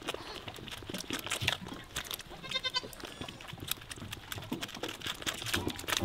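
Lamb suckling at a feeding bottle, with repeated wet sucking clicks, and one short, wavering bleat about two and a half seconds in.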